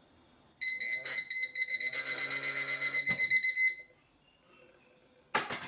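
Liquid level indicator for the blind sounding a high, rapidly pulsing beep for about three seconds: its signal that the liquid in the cup has reached the top. A short clatter near the end.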